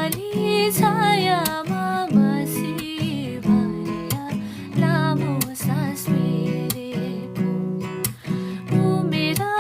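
Background music led by a strummed acoustic guitar, with a wavering melody line over it.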